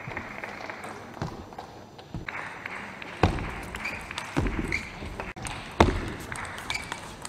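Table tennis rallies: the celluloid-style ball clicking off bats and table, over a steady arena crowd noise, with a few sharp thuds about three, four and a half and six seconds in.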